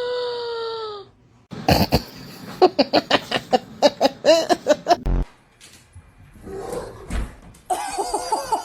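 A person laughing in a string of short bursts for a few seconds, with a low thump about halfway through.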